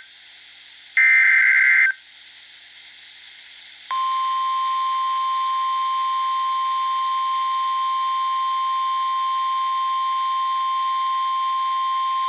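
Emergency Alert System tones on NOAA Weather Radio before a tornado warning. About a second in comes a one-second burst of the digital SAME header, a buzzing data squeal. After a short hissy pause, about four seconds in, the steady single-pitch 1050 Hz weather-radio warning alarm starts.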